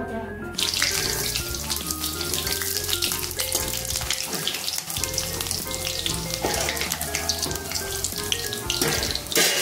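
Pieces of besan (gram-flour) barfi deep-frying in hot oil in a kadhai, sizzling and crackling steadily from about half a second in. A brief louder noise comes near the end.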